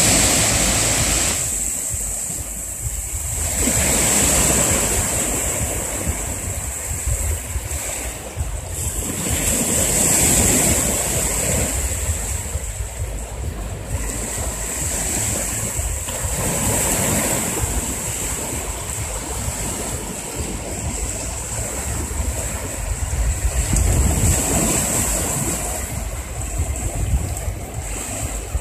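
Small sea waves breaking and washing up a sandy shore, the wash swelling and easing every several seconds, with wind buffeting the microphone as a low rumble.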